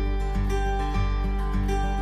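Royalty-free background music with plucked notes in a steady rhythm, about three notes a second.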